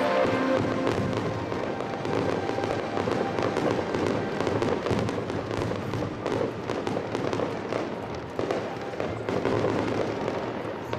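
Aerial fireworks going off in a dense, continuous crackle of rapid pops and bangs.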